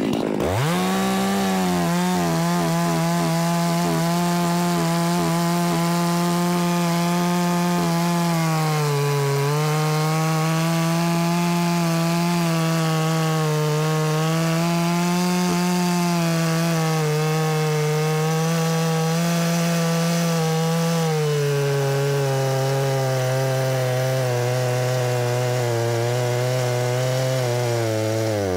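Large two-stroke chainsaw revving up and cutting through a log at full throttle for a long, continuous cut. The engine pitch sags under load about a third of the way in and recovers, then drops again about two thirds in and stays lower until the throttle falls off at the end.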